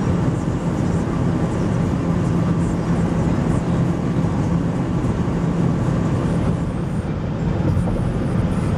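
Steady road and engine noise inside a moving vehicle's cabin, with a constant low hum.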